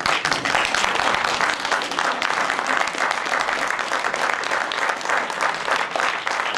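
Theatre audience applauding: many hands clapping together, breaking out all at once and holding dense and steady.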